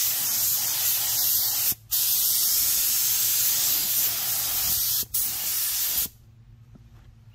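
Compressed-air gravity-feed paint spray gun hissing as it sprays epoxy primer onto an engine block. It goes in three passes with two short breaks where the trigger is let off, and stops about six seconds in.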